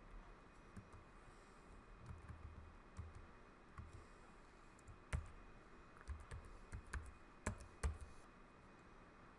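Faint, irregular clicks of computer keyboard keys being typed, with a few louder keystrokes in the second half.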